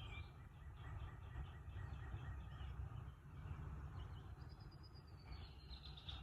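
Faint outdoor ambience: a low wind rumble with birds calling, a rapid run of small chirps and then a falling whistled note near the end.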